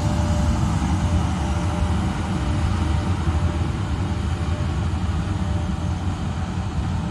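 Train running with a steady low rumble, a faint steady whine riding over it.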